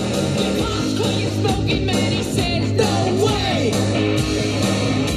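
A rock song with singing, received from an FM station and played through a Marantz 2230B receiver and its speakers.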